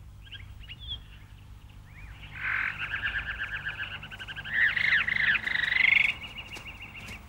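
Frogs calling in fast pulsed trills, starting about two seconds in and growing loudest around five seconds, over a faint steady low hum.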